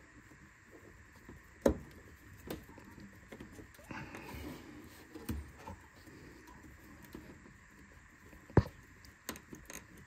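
Scattered clicks and knocks of a hand fumbling at a headlight wiring-harness connector deep in a car's engine bay, trying to press its release tab. The sharpest click comes near the end.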